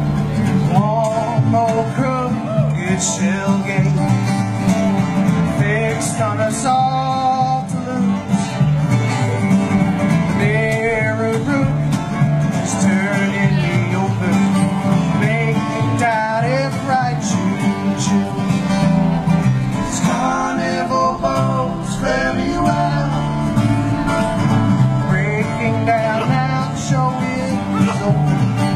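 Live bluegrass played on two acoustic guitars and a plucked upright bass, the guitars picking quick runs and strumming over a steady walking bass.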